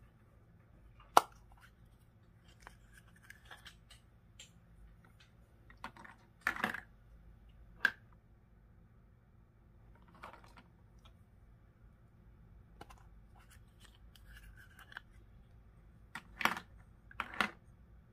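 Small hard-plastic toy capsules and figurines being handled: scattered clicks and snaps of plastic lids and parts, with brief rubbing and scraping between them. The sharpest click comes about a second in, with a cluster of louder clicks around the middle and two more near the end.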